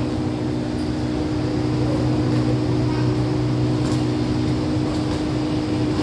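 Steady hum of a stationary air-conditioned passenger train idling: several constant tones over an even rumble.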